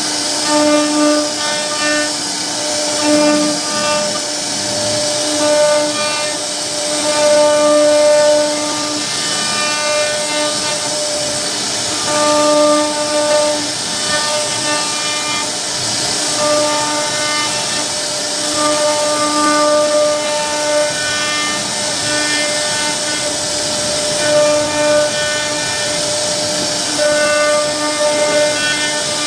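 CNC router spindle running and carving a wooden door panel: a steady high hiss with a fixed-pitch whine that swells and fades every second or two as the bit cuts along the pattern.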